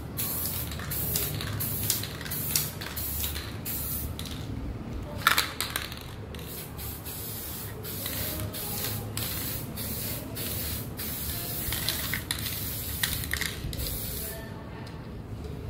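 Aerosol spray paint can hissing in many short bursts in quick succession, roughly one or two a second, stopping a little before the end.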